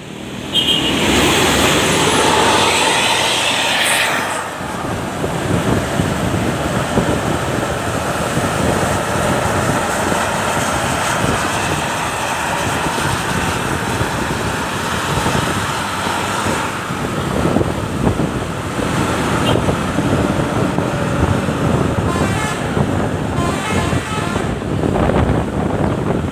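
Steady road and traffic noise from a bus travelling on the road, with a vehicle horn sounding in the first few seconds.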